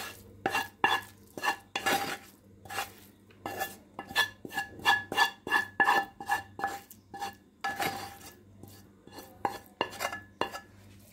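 Wooden spoon scraping and knocking against a metal frying pan while scraping fried peppers and carrots out of it. A quick run of knocks, two or three a second, each leaving the pan ringing briefly, with a short break before the last few.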